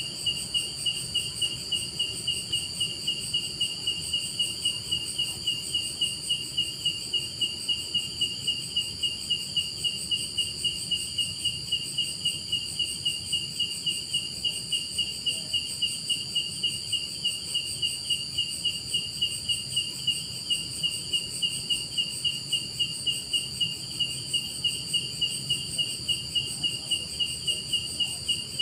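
Chirping insects: an even, regular chirp of about three a second over a continuous high-pitched trill, steady throughout.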